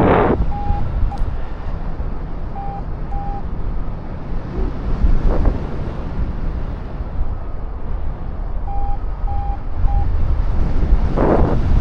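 Strong wind buffeting the microphone, with a flight variometer giving short beeps at one steady pitch in runs of two or three, as it registers lift. The wind swells in louder gusts about five seconds in and again near the end.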